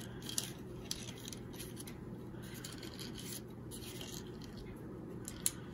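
Faint rubbing and rustling of a small piece of glued paper being folded and pressed around a marking pin by hand, with a few small ticks, over a steady low room hum.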